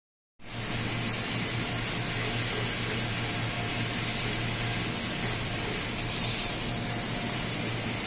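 Steady machine hum with a strong hiss over it, which briefly grows louder about six seconds in.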